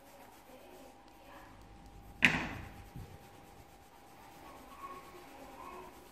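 Coloured pencil rubbing faintly on paper, with one sharp knock against the table about two seconds in and a lighter click just after. A faint steady tone runs underneath.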